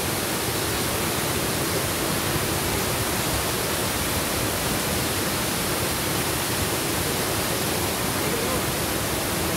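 Waterfall pouring into a pool, a steady, unbroken rush of water.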